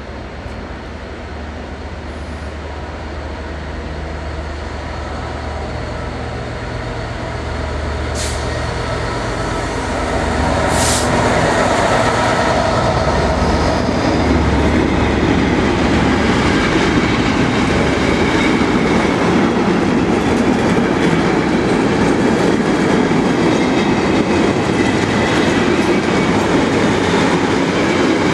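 EMD Class 66 diesel-electric locomotive with its two-stroke V12 engine under power, accelerating and growing steadily louder as it comes up to pass about ten seconds in. After it has passed, a long container train rolls by with a continuous rumble of wheels and rail clatter. There are two short sharp high sounds, at about eight and eleven seconds in.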